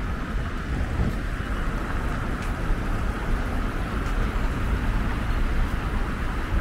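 Busy city-street ambience: a steady wash of traffic noise, with wind buffeting the microphone as a fluctuating low rumble.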